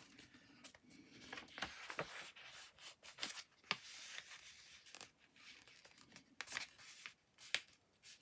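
Sheet of craft paper being handled and worked: soft, irregular rustling with several sharp clicks or snips scattered through.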